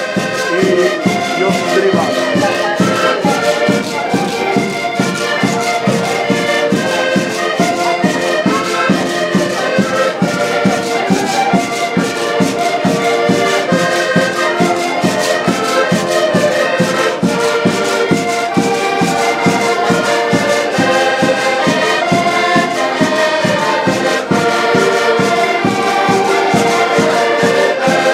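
Ensemble of diatonic button accordions (concertinas) playing a traditional folk tune together in full chords, with a steady quick beat.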